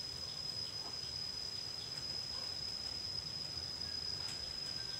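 Steady high-pitched trill of a cricket, with a low background hum and a few faint clicks near the end as the bonsai branches are handled and wired.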